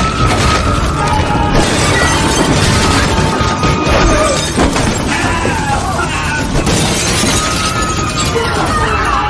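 Loud music layered with glass-shattering and crashing sound effects, dense and steady in loudness throughout.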